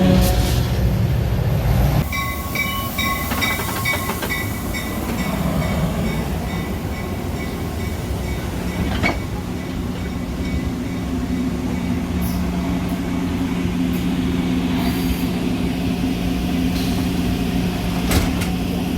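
Metra commuter train: a door-closing warning tone beeps repeatedly for a few seconds, a sharp knock comes about nine seconds in, and a steady low hum from the train follows.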